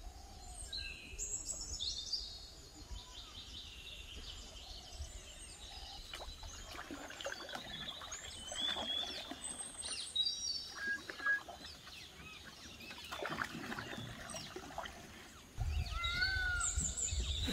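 Several birds chirping and singing, with many short whistles and trills overlapping. A low wind rumble on the microphone runs underneath and grows stronger near the end, and a few short rustling noises come through in the middle.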